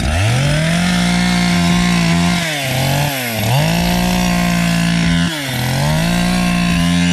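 Two-stroke chainsaw held at full throttle while cutting a hole through pond ice. The engine speeds up sharply at the start, bogs down twice and picks up again each time, then drops off right at the end.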